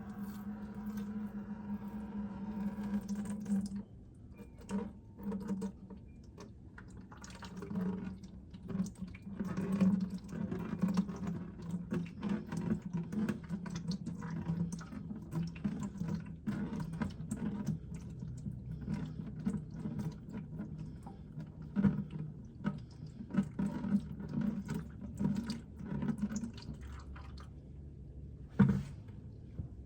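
Engine oil pouring from a Can-Am F3 Limited's drain hole into a drain pan: an irregular liquid stream with drips. A held pitched tone with overtones is heard at the start and cuts off about four seconds in.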